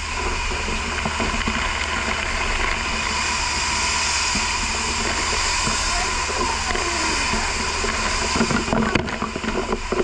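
Fire hose spraying water in a steady, loud hiss of spray spattering on surfaces. Near the end the hiss breaks up into uneven knocks, with voices.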